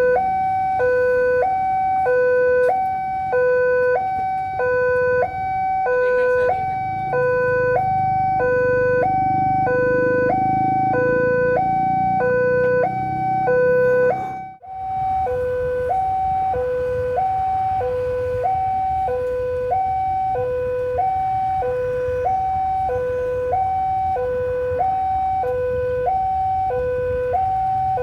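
Railway level-crossing warning alarm sounding, an electronic two-tone signal that alternates a low and a higher tone about once a second, warning that a train is about to pass. It cuts out for a moment about halfway, then carries on.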